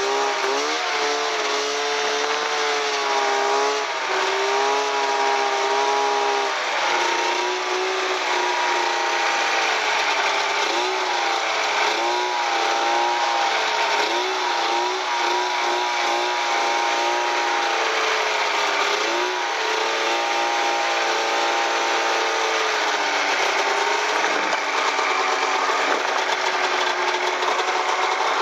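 Snowmobile engine running under way, its pitch rising and falling with the throttle, over a steady hiss of wind and track noise.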